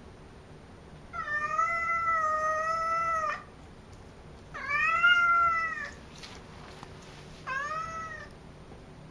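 Domestic cat meowing loudly at a closed door: three long, drawn-out meows. The first lasts about two seconds, the second is a little shorter and the last is brief.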